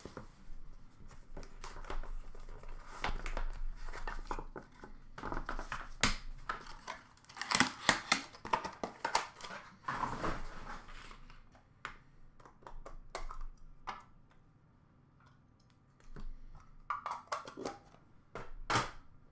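A sealed box of trading cards being torn open by hand: crinkling plastic wrap, tearing cardboard and the rustle and clatter of card packs being handled, busiest in the middle, with a few short bursts of handling near the end.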